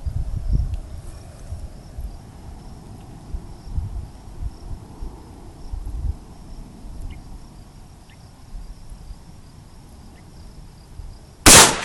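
A single loud shot from a Mosin-Nagant bolt-action rifle (7.62×54R) near the end, over a steady insect chirring and wind rumble on the microphone.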